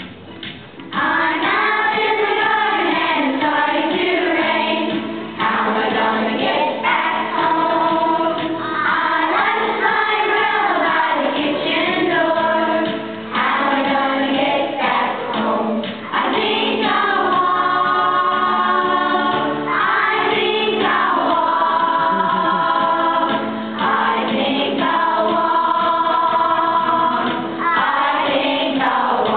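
A group of preschool children singing a song together as a choir, beginning about a second in.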